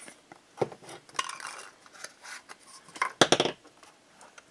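Hand-handling noises of small metal parts on an RC tank hull: a steel support brace and its screw being fitted, with light clicks and rubbing and one louder clatter about three seconds in.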